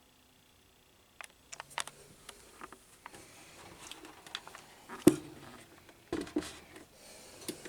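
A table fan being handled and moved: scattered clicks, taps and light rustling that start about a second in, with a sharper knock about five seconds in and a few more knocks soon after.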